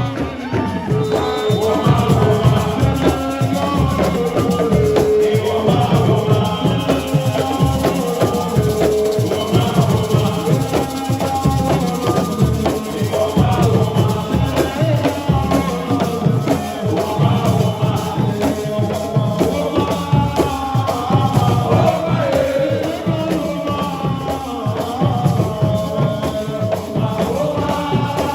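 A crowd singing together over steady rhythmic percussion with a rattling, shaker-like sound.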